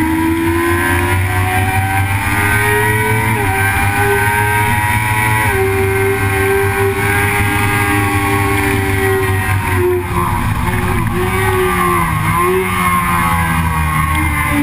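Engine of a track-day vehicle at speed, a high steady note that climbs with two quick steps about a third of the way in, then dips and recovers several times about two-thirds through.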